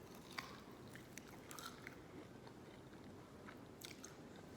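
Faint chewing with a few small, scattered crunches and mouth clicks, over quiet room tone.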